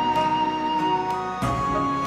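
Background music: a slow melody of held notes, changing note about one and a half seconds in.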